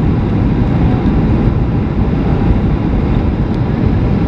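Airplane cabin noise in flight: a steady, loud rush of engine and airflow noise, heaviest in the low end.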